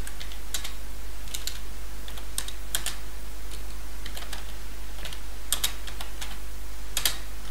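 Computer keyboard typing: short, irregular bursts of keystrokes, with a steady low hum underneath.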